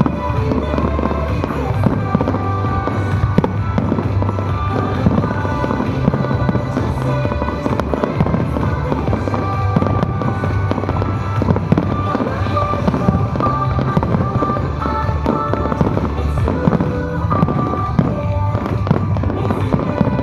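Fireworks bursting many times in quick succession over show music with a strong bass, played through loudspeakers.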